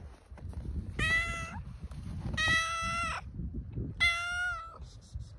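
A cat meowing three times, each call under a second long, over a low rumble.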